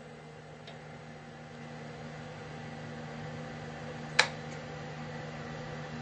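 Laguna Revo wood lathe running under its replacement variable frequency drive, a steady motor hum that grows slightly louder over the first few seconds. About four seconds in, a sharp click as a button on the control panel is pressed.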